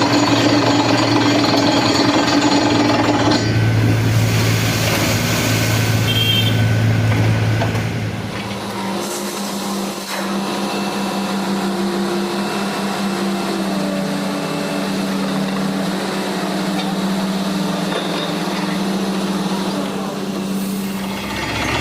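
Borewell drilling rig running under load, a steady mechanical drone with engine tones. The note shifts about four seconds in and drops again around nine seconds, then holds steady.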